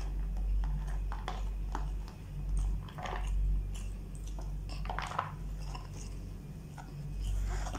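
A person chewing and smacking while eating, with scattered short clicks and taps, the loudest about three and five seconds in.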